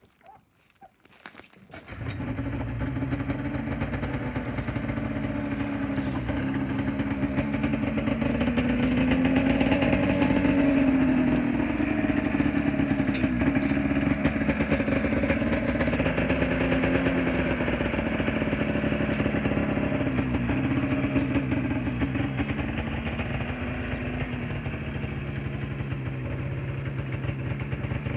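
1994 Ski-Doo Formula Z snowmobile's two-stroke engine starting about two seconds in, then running with its pitch wavering: rising a little partway through, then settling back to a fast idle.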